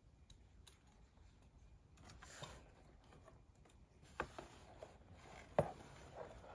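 Faint rustling of packaging being handled, with a few sharp clicks, the loudest about four and five and a half seconds in.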